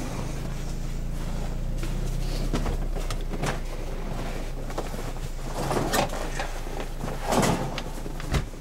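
A car engine running steadily, with several knocks and clunks over it; the engine's low hum drops away near the end.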